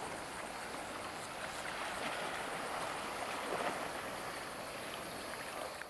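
Small waves lapping steadily at the reedy shoreline, with a faint high insect drone running underneath.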